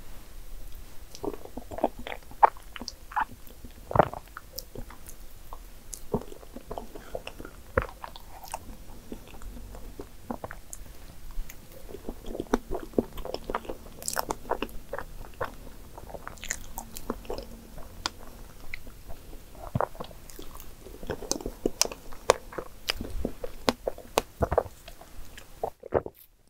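Close-miked eating: soft, wet chewing and lip smacks of a person eating strawberry soufflé pudding with whipped cream off a spoon, with sharp little clicks scattered irregularly throughout.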